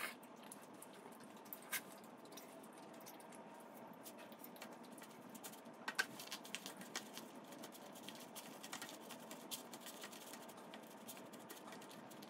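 Wooden chopsticks clicking and scraping against a black plastic takeout container as food is picked out of it, faint and scattered, with a louder click about two seconds in and a run of quick clicks about six seconds in.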